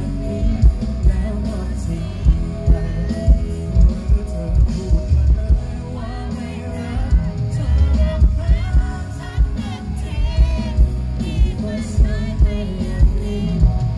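Live band music with a male lead singer singing into a microphone, over strong bass and steady drum hits.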